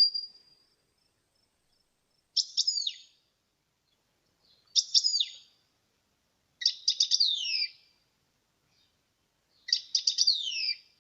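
A small songbird singing four short phrases, each a quick run of high notes ending in falling whistles, about every two and a half seconds.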